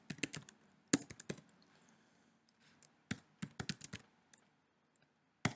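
Typing on a computer keyboard: quick runs of keystrokes in a few short bursts, with pauses of a second or so between them.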